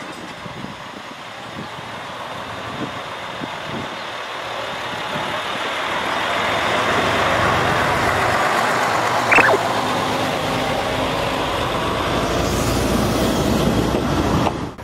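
Yellow Isumi Railway diesel railcar pulling away from the platform and passing close by: engine and wheels on the rails grow louder over the first several seconds and then hold steady. A short squeak comes about nine seconds in, and the sound cuts off suddenly near the end.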